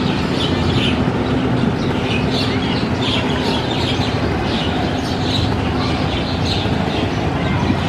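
A river passenger launch's diesel engine running with a steady low hum, while birds chirp over it in quick, irregular calls.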